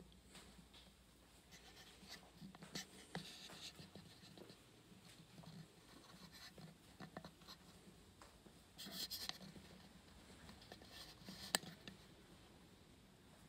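Near-silent room with faint rustling and footsteps from the phone being carried while walking. There are soft scratchy bursts now and then, and a sharp click near the end.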